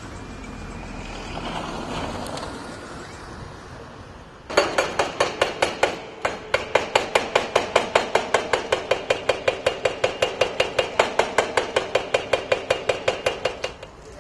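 Hydraulic breaker on a tracked excavator hammering concrete rubble: a rapid, steady series of blows, about five a second, that starts abruptly about four and a half seconds in and stops near the end. Before it, only a low background noise.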